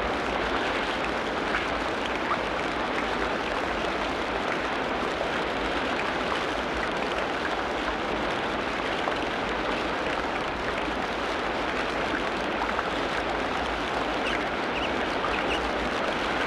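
Tropical rainforest ambience: a steady hiss of falling or running water, with a few faint high chirps near the end.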